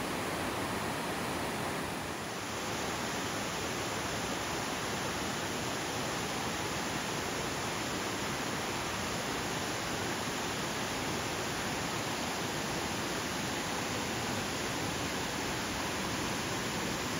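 Yudaki Falls, a broad cascade sliding down a rock face, rushing steadily with an even hiss of falling water. It dips briefly about two seconds in.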